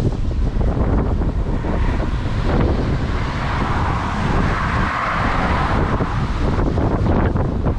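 Strong wind buffeting the microphone: a loud, continuous low rumble, with a rushing hiss that swells and fades in the middle.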